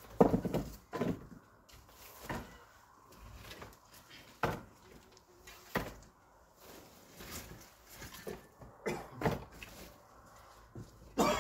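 Scattered knocks and clatter, about eight or nine spread unevenly, the loudest just after the start and near the end.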